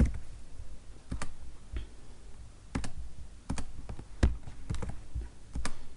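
Irregular clicks of a computer keyboard and mouse, spaced out at no steady rhythm.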